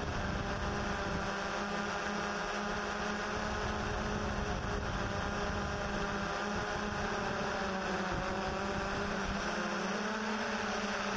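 Steady hum of a Yuneec Typhoon H hexacopter's motors and propellers in flight, holding one pitch, with a fluctuating low rumble underneath.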